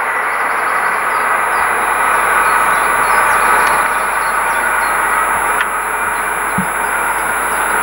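Freightliner Class 66 diesel locomotive, with its EMD two-stroke V12 engine, running steadily as it approaches hauling a container train, mixed with the even rumble of wheels on rail.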